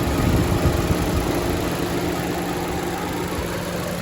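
Chevrolet Orlando's 1.8-litre four-cylinder petrol engine idling steadily.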